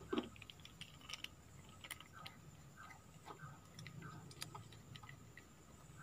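Faint scattered clicks and small scrapes of hands handling a small plastic rocker switch and its wires, with a screwdriver working at its terminal screws near the end; a few sharper clicks stand out among them.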